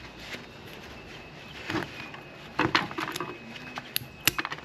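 Small flathead screwdriver scraping and clicking against the thin metal banding of a CV boot clamp as it is pried up from underneath. The clicks are scattered and irregular, and the sharpest come near the end.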